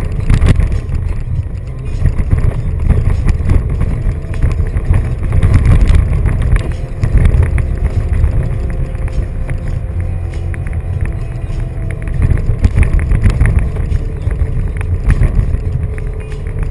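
Toyota Tacoma's 2.7-litre four-cylinder engine working hard under load as the truck climbs soft sand, heard from inside the cab as a loud, heavy low rumble with frequent knocks and rattles from the truck bouncing over the terrain.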